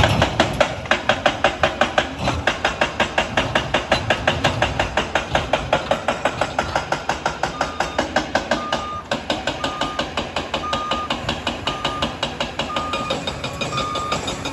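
Liebherr 746 crawler dozer's steel tracks clanking in a fast, even rhythm over a low engine rumble as the machine travels. About seven seconds in, its reversing alarm starts beeping about once a second.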